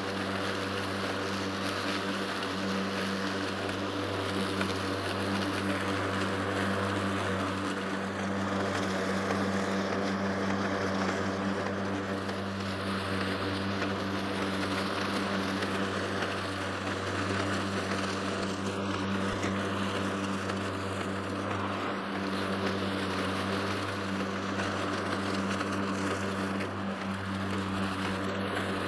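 Stiga Twinclip 950 SQ AE cordless lawnmower's brushless motor and twin-layer blade running steadily while mulching grass: a constant-pitch hum with a hiss above it.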